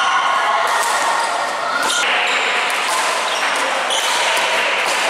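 Badminton doubles rally: rackets striking the shuttlecock in sharp, repeated hits, with players' shoes squeaking on the court floor, echoing in a large hall.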